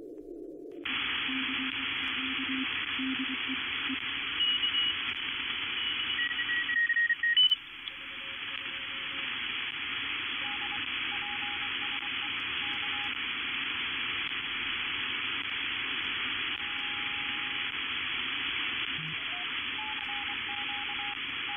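Shortwave receiver audio from a KiwiSDR tuned in the 40-metre amateur band: a wide band of static hiss with faint Morse code (CW) tones keyed on and off at several different pitches. About a second in, the hiss suddenly widens and brightens as the receive filter is opened up. A brief loud burst of noise comes around seven seconds in, and right at the end the hiss turns duller as the filter is narrowed.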